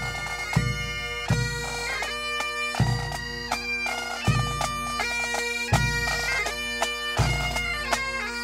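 Scottish Highland pipe band: bagpipes playing a tune over their steady drones, with a bass drum struck about every second and a half.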